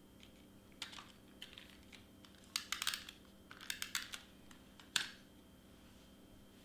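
Double-sided tape runner laying tape on cardstock: scattered clicks and crinkles, two short runs of quick clicks around the middle, and a single sharper click about five seconds in.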